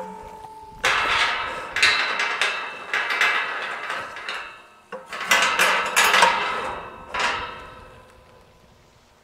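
Tubular metal field gate clanking and ringing as it is handled, about half a dozen sharp metallic knocks, each ringing on briefly. It dies away near the end.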